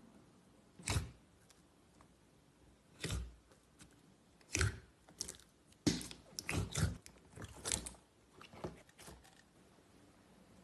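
Slime being squeezed and pressed by hand, giving short bursts of sound. A few come spaced out at first, then a quicker cluster comes between about six and eight seconds in.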